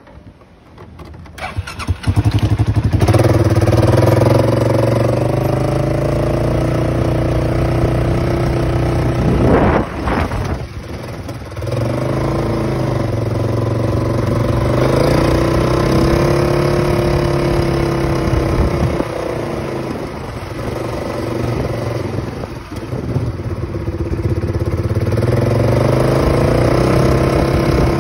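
Polaris Sportsman ATV engine starting about two seconds in, then running as the ATV is ridden, its pitch rising and falling several times.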